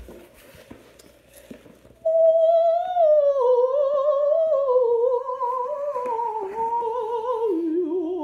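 A few seconds of cardboard box flaps being handled, with light taps and rustles, then a woman singing one long drawn-out wavering note that slides and steps gradually lower in pitch.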